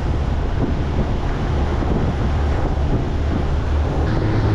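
Wind buffeting the microphone over the low rumble of a boat under way on the water. About four seconds in, a steady low engine hum comes in.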